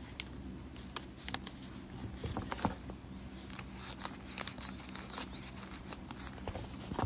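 Paper and a plastic sleeve rustling as they are handled, with scattered small clicks and taps over a faint steady hum. A denser rustle comes about four to five seconds in.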